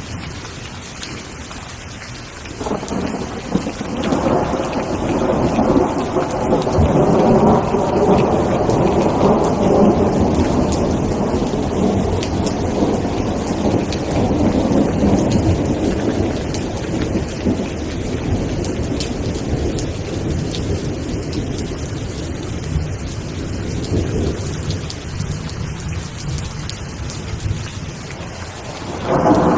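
Steady heavy rain with a long roll of thunder that builds about two seconds in and slowly rumbles away over many seconds; another thunder roll begins near the end.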